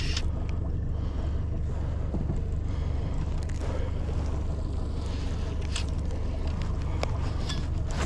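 Steady low rumble of a small fishing boat on the water, with scattered light clicks and a faint hiss.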